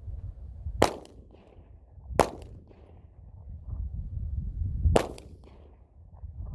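Three handgun shots, the first two about a second and a half apart and the third about three seconds later, each a sharp crack with a brief echo. A low wind rumble on the microphone runs underneath.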